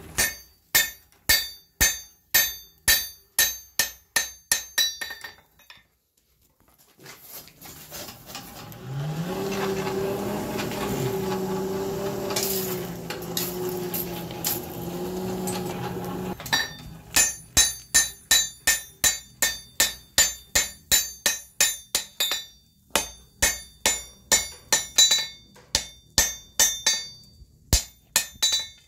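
A hand hammer strikes red-hot iron on an anvil at about three ringing blows a second. About halfway through, the hammering stops and the coal forge's blower runs for about ten seconds, its hum rising in pitch as it comes up to speed, before the ringing hammer blows resume.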